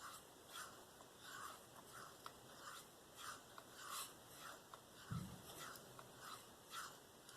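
Steel knife blade (a Spyderco Endura 4 in K390) being drawn in repeated freehand strokes across a wet Venev diamond sharpening stone: a faint, soft scrape about twice a second. There is one short, dull thump about five seconds in.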